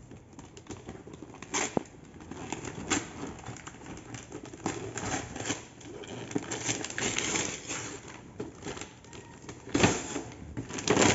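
Paper crackling, rustling and tearing as a printed paper gift box is ripped open by hand and tissue paper is pulled out. A few louder rips stand out, one about a second and a half in and two near the end.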